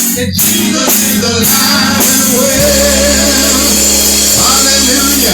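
Live band music with a singer: drum hits stop after about a second, then the band holds a long, sustained low chord under the voice.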